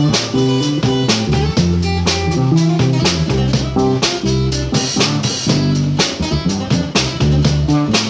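Small band playing live: a strummed acoustic guitar and a second guitar over a drum kit, with sustained low notes under a steady beat of drum hits.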